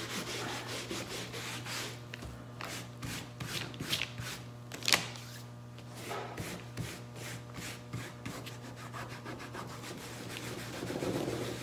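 Fingers rubbing damp photocopy paper on a glued image transfer, in quick repeated scrubbing strokes that roll the softened paper fibres off and leave only the ink. One sharper, louder scrape comes about five seconds in, over a faint steady hum.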